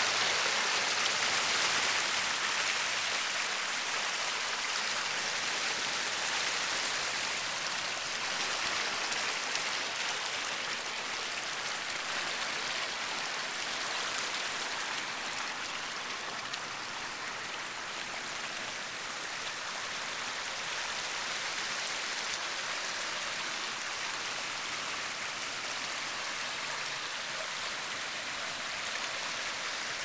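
Water from a man-made backyard waterfall splashing and trickling over stone steps into a pond, a steady rushing hiss. It is a little softer midway.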